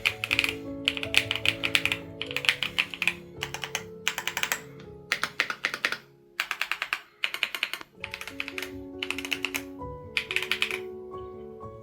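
Fast typing on a Keychron Q5 Max mechanical keyboard with yellow Banana tactile switches, in runs of rapid keystrokes a second or two long with short pauses between them. Background music with sustained notes plays underneath.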